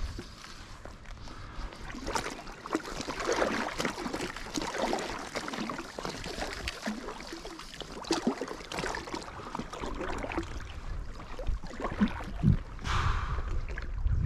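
Lake water lapping and splashing against an inflatable float tube, with irregular small knocks and clicks.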